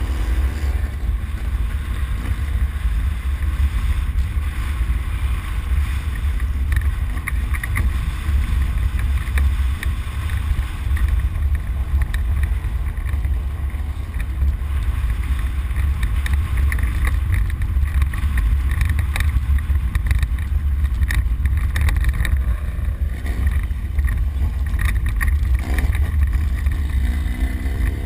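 Ride inside a Ford Explorer prerunner's cabin driven hard off-road: a loud, steady low rumble of engine, drivetrain and wind buffeting, with scattered rattles and knocks as the truck jolts. Near the end the engine revs up.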